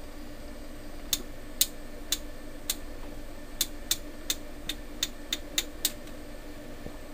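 Detent clicks of the TIME/DIV rotary switch on a Leader LBO-513A oscilloscope as the knob is turned step by step. About a dozen sharp clicks at uneven spacing, starting about a second in and stopping near six seconds in.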